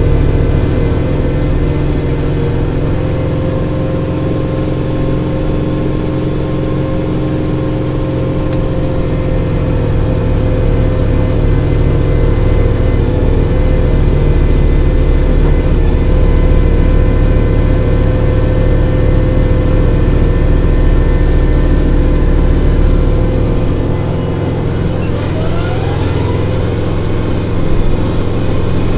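Kubota tractor's diesel engine running steadily, loud and close.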